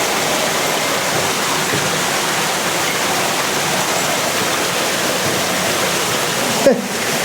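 Steady rush of water from a mountain stream and waterfall. Near the end, a short knock, with the rushing briefly muffled.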